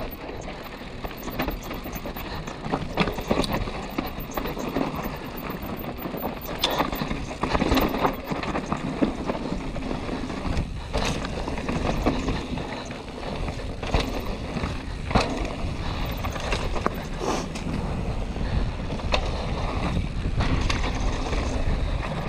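Yeti SB150 full-suspension mountain bike descending dry dirt singletrack: a steady rush of tyre and trail noise, broken by frequent sharp clatters and knocks as the bike rattles over rocks and bumps, with wind on the microphone.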